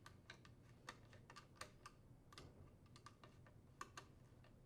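Faint, irregular small clicks of a screwdriver tightening the power cord's strain relief screws on a garbage disposer.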